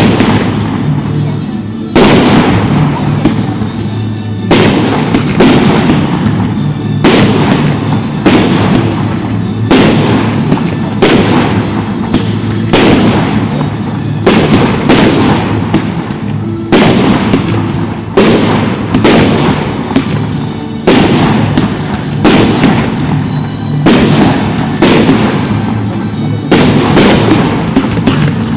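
Fireworks display: shells going off in quick succession, a loud, sharp bang about once a second, each dying away before the next.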